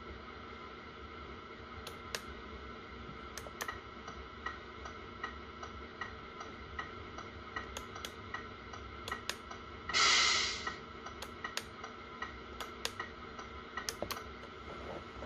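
A scale RC model truck stands idling, with a steady faint hum under irregular sharp clicks. About ten seconds in comes one short, loud hiss of air, like an air-brake release.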